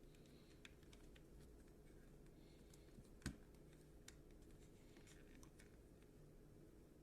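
Quiet scattered clicks and light taps, as of small parts being handled, with one sharper click about three seconds in over a low steady hum.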